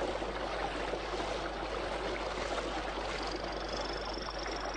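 Steady rush of a fast-flowing forest stream. About three seconds in, a male Brazilian torrent frog (Hylodes asper) gives a high-pitched trilled advertisement call, rising slightly in pitch and lasting under two seconds; it barely stands out above the water noise.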